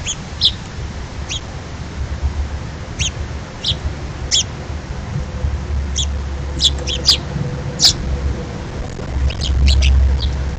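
Small birds chirping in short, scattered calls over a steady low rumble that grows louder near the end.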